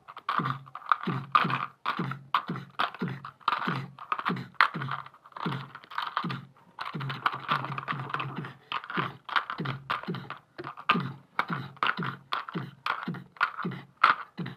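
A rapid, fairly even run of short sharp clacks, about three a second, that carries on without a break.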